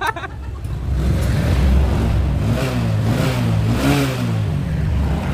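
An engine running and revving up and down several times, its pitch rising and falling in short swells from about two seconds in.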